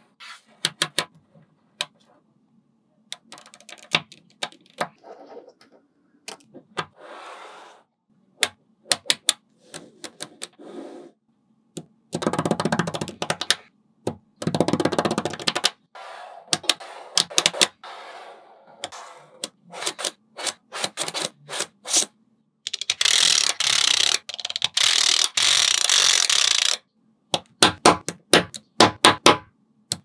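Small magnetic balls clicking sharply as they snap together one after another, with several stretches of a second or more of dense clattering as larger clusters of balls are pushed and pressed into slabs.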